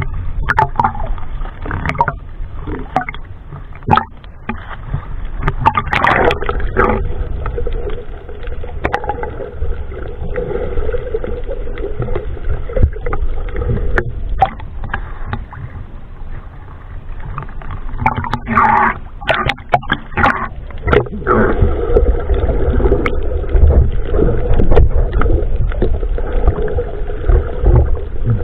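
Sea water sloshing and bubbling around a camera at the surface and underwater, with a steady low rumble and scattered splashes and knocks, busiest about six seconds in and again near twenty seconds.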